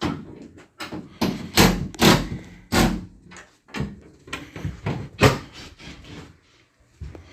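A series of irregular knocks and thumps, several sharp loud ones among quieter clattering.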